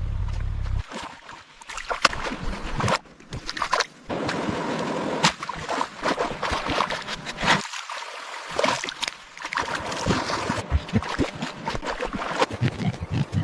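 Water splashing and running, with many sharp splashes, broken by several abrupt cuts.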